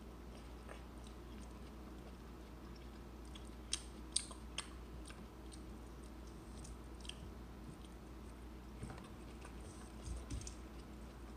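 Quiet chewing as rambutan fruit is eaten at a table, with a few small sharp clicks about four seconds in.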